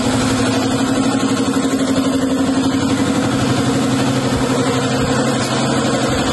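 Steady machine running: a constant low hum with an even hiss over it, unchanging throughout.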